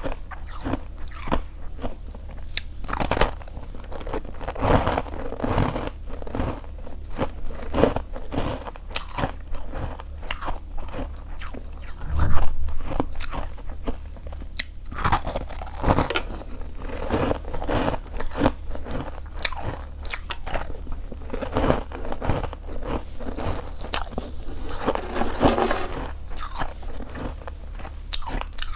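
Close-miked biting and chewing of freezer frost: dense, irregular icy crunching that goes on throughout, with the loudest crunch about twelve seconds in.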